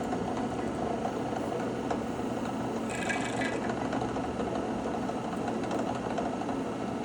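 A power tool's motor running steadily, with a brief higher whine about three seconds in.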